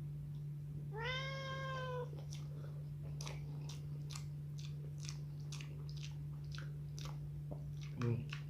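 A cat meows once, about a second in, a single call about a second long. After it, close-up chewing with wet mouth clicks and lip smacks comes from someone eating rice and eggplant balado, over a steady low hum.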